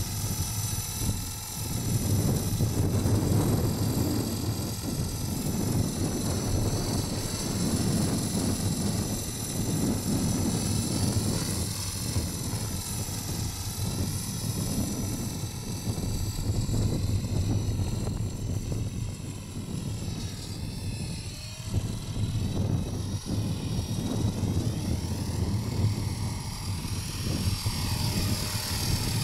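Electric Blade CP Pro RC helicopter with a Feigao brushless motor in flight: the high motor whine wavers up and down in pitch as the rotor speed changes, with wind rumbling on the microphone underneath.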